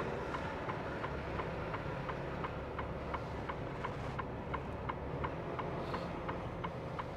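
Inside a semi-truck's cab, the diesel engine runs with a low steady hum while the turn-signal indicator ticks evenly, about two to three ticks a second.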